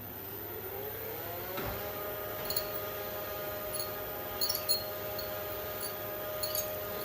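Lift starting its upward run: the drive whine rises in pitch for under two seconds, a knock sounds as it reaches speed, and then it hums steadily with scattered faint high squeaks. The noise is put down to the lift's brake, mostly at the start of the up move.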